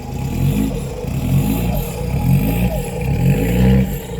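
A 4x4's engine revving up and down repeatedly under load, with its pitch rising and falling several times.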